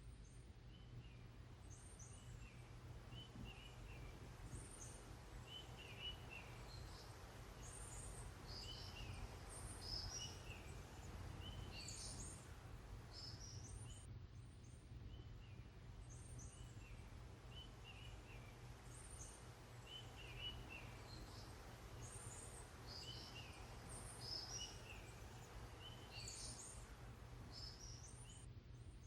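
Small birds chirping faintly in short, high, repeated calls, several a second at times, over a steady low rumble.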